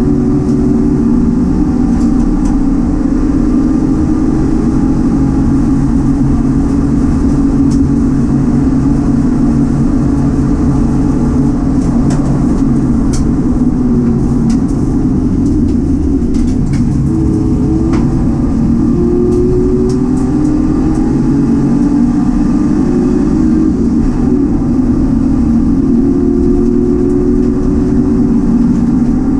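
Citroen C1 race car's engine running hard at racing speed, its pitch rising and falling several times with throttle and gear changes, with a few sharp clicks in the middle.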